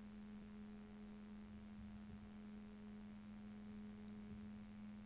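Near silence with a faint, steady low hum and a faint high whine, unchanging throughout.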